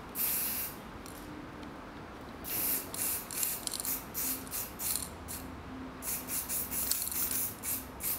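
Aerosol spray paint can hissing as it is sprayed in bursts: a short spray at the start, a longer one about two and a half seconds in, then a run of quick short sprays in the second half.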